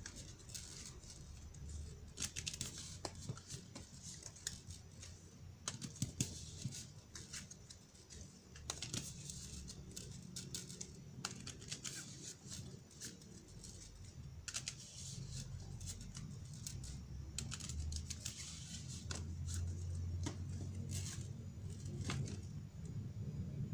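A deck of fortune-telling cards being shuffled by hand on a table: irregular soft flicks and slaps of the cards, over a low steady hum.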